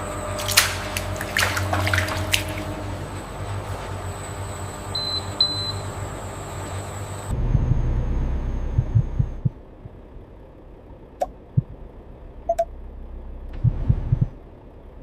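Factory machinery hum with a few metallic clanks and two short high beeps. About halfway it cuts to a low rumble with several thumps, then quieter ambience with scattered clicks.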